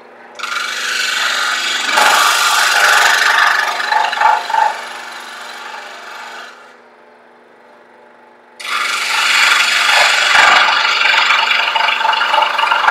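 Porter Cable 18-inch variable-speed scroll saw making two relief cuts. The blade rasps through the workpiece for about six seconds, the saw runs unloaded with only its steady hum for about two seconds, then the second cut starts.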